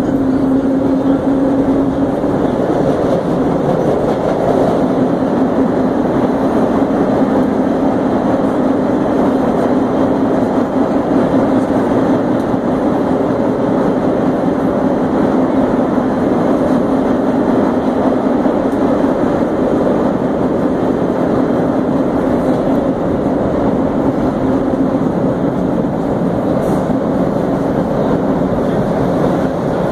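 Vintage R1/R9 subway car running on the line, heard from inside the car: loud, steady rumble of wheels and running gear with a steady hum.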